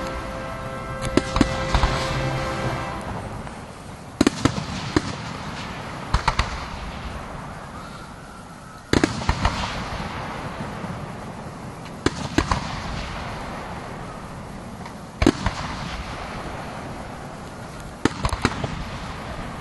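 Fireworks display: aerial shells bursting with sharp bangs every few seconds, some in quick pairs, with crackling between the bursts. Orchestral music fades out during the first few seconds.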